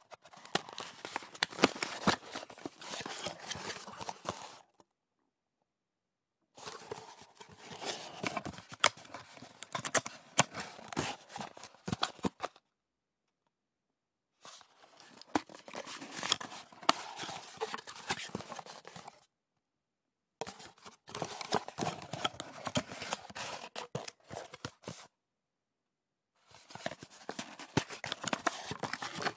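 Cardboard box being handled, its cardboard rustling, scraping and crackling with many sharp clicks. Five separate takes of several seconds each, with silent gaps between them.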